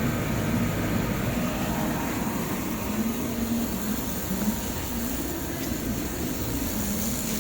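Air-cooled handheld laser welder running, a steady hum and hiss from the machine's cooling fans.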